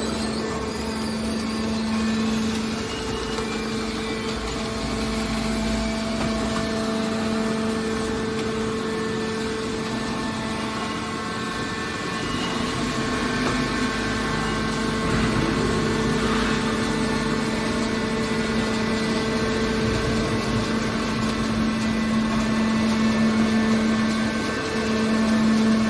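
Hydraulic scrap metal baler running: a steady machine hum from its motor and hydraulic pump, growing a little louder near the end.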